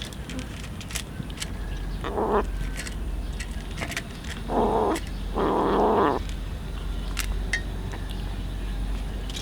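An animal calling three times: a short call about two seconds in, then two longer calls close together around the middle, over a steady low hum.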